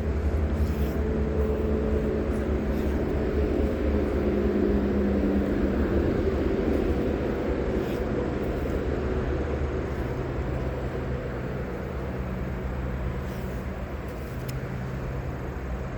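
Steady low engine drone from a passing motor, swelling a few seconds in and slowly fading.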